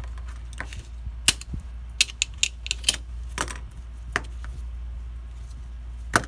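Irregular sharp clicks and taps of small hand tools being handled against a workbench and circuit board, about a dozen in all, clustered in the middle, with a steady low hum underneath.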